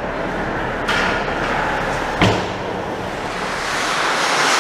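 Ice hockey game sounds in a rink: a steady wash of arena noise, a smaller knock about a second in, and one sharp thud about two seconds in, the loudest moment.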